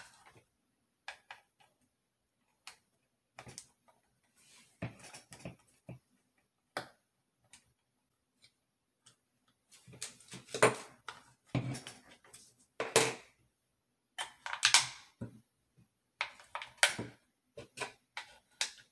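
Irregular small plastic clicks and knocks from handling a Wheeler digital trigger pull gauge while its battery cover is opened with a small screwdriver. The clicks come sparsely at first and more often in the second half.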